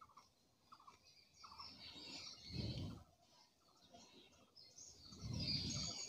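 Faint background bird chirps, short calls repeated every half second or so, with two soft low rumbles: one about halfway through and one near the end.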